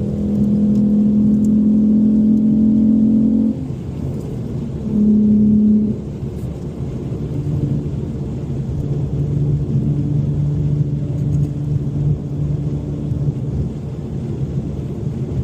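Car engine running at steady revs, dropping to a lower, quieter note about three and a half seconds in. A brief rise in revs follows about five seconds in, then it settles into a steady low cruise.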